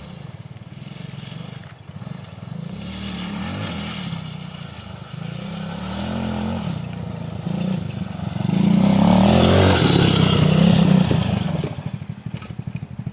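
Quad ATV engine running and revving up and down, growing louder until it is loudest about nine to eleven seconds in, then falling away near the end.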